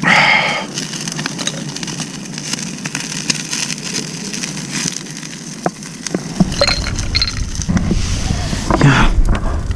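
Small wood fire crackling on a camp grill, with a short loud rustle at the very start. About six seconds in, a low rumble joins, along with a few knocks.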